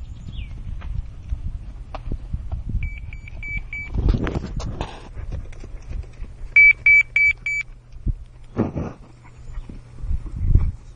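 Hooves of a black Mangalarga Marchador horse thudding on sandy ground as it moves under its rider. Over them come two runs of four high electronic beeps, the second run louder, and two short rushes of noise.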